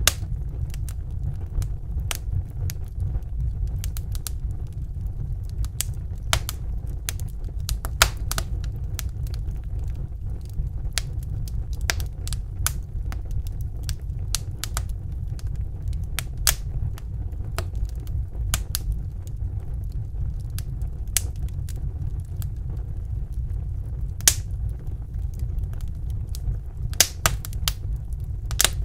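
Wood fire crackling in a fireplace: irregular sharp pops and snaps, a few of them louder, over a steady low rumble.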